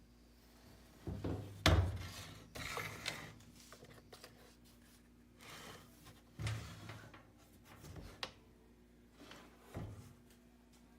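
Irregular knocks and rubbing or scraping of objects being handled, about eight separate bumps with the sharpest knock a little under two seconds in.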